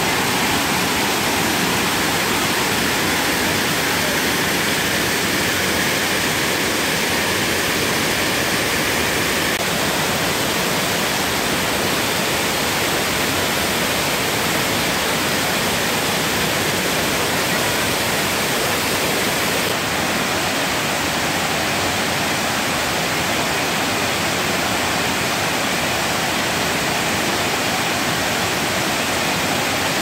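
Waterfall: water cascading over broad rock tiers, a steady, unbroken rush.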